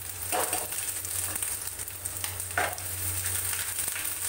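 Crushed garlic and grated ginger sizzling in hot mustard oil in a frying pan as they are stirred, with two brief louder sounds about half a second and two and a half seconds in.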